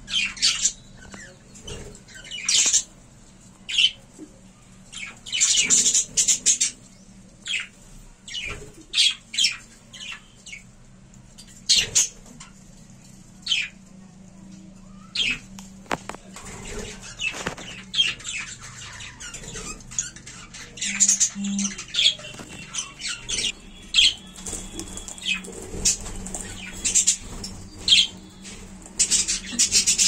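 A colony of budgerigars chirping and chattering: many short, high-pitched calls in quick, irregular runs.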